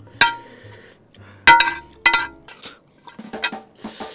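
Metal spoon clinking and scraping against a large ceramic plate as the last scraps of noodles are scooped up: three sharp, ringing clinks in the first two seconds, then softer clicks near the end.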